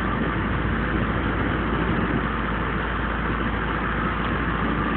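A fishing boat's engine running steadily, a constant rumble with no change in speed.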